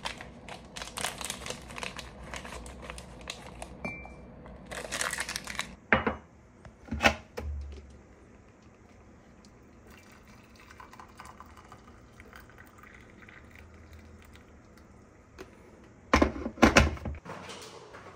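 Foil tea sachet crinkling and being torn open for the first several seconds, followed by two sharp knocks. Then hot water is poured quietly from a stainless steel electric kettle into a ceramic mug, and a cluster of knocks comes near the end.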